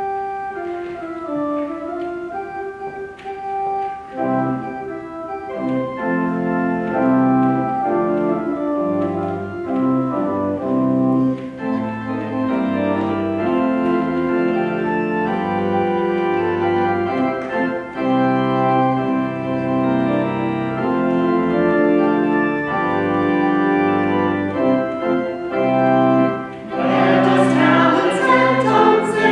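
Organ playing a hymn introduction in sustained chords over held bass notes. Voices come in singing the hymn near the end.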